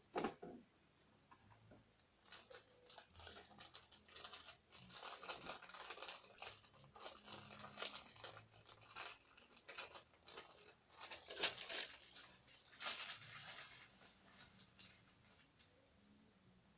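Irregular crinkling and rustling handling noise with many small ticks, which grows busier about two seconds in and dies away near the end.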